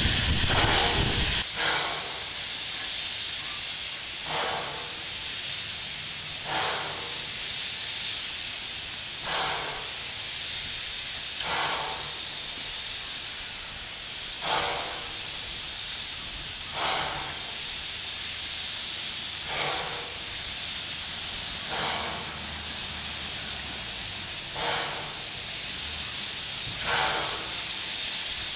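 Narrow-gauge steam tank locomotive 6A standing with steam hissing. The hiss is louder for the first second or so, then steadier, with a short puff of steam about every two seconds.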